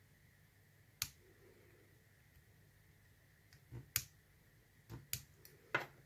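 Sharp metallic clicks from a lock pick and tension wrench working the spool-pinned core of a Chubb padlock, as the core is picked open. One loud click about a second in, then a run of clicks from about four seconds on.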